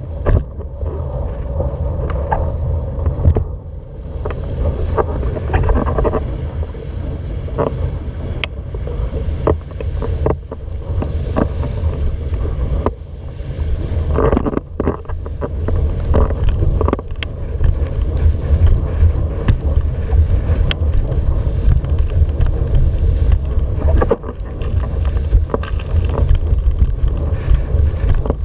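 Heavy wind noise on a boom-mounted camera's microphone as a windsurf board sails across the water, with the hull hissing and slapping through small chop. Short knocks and splashes come now and then.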